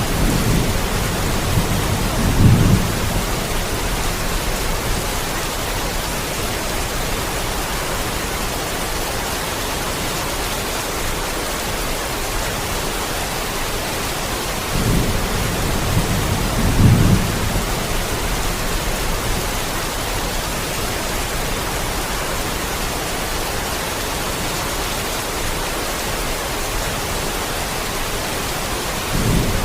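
Steady heavy rain hiss, with two low rumbles of thunder: one a couple of seconds in and another about halfway through.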